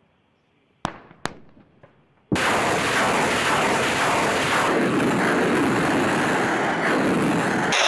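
Multiple-launch rocket system firing: two sharp reports about a second in, then a loud continuous roar of rocket motors that starts abruptly just past two seconds.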